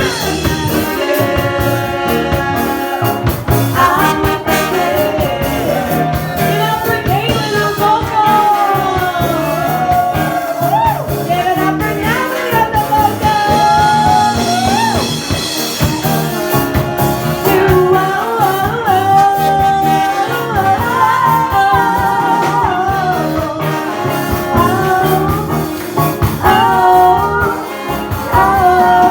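Live band playing a song: a wavering sung lead melody over bass, keyboards and a steady drum beat.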